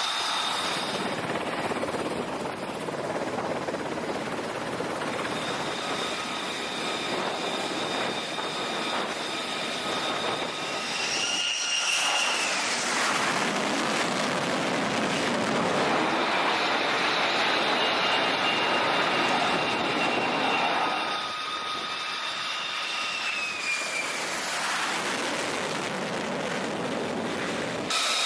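F-35C Lightning II turbofan jet engines running on an aircraft carrier flight deck: a continuous rushing roar with steady high-pitched whines. There is a brief break a little before halfway, and falling whines near 12 s in and again near the end.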